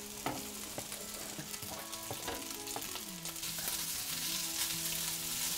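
Cooked rice and vegetables sizzling in hot oil in a pot over high heat as the rice goes in and is stirred with a spatula, with a few short scrapes. Soft background music with sustained notes plays underneath.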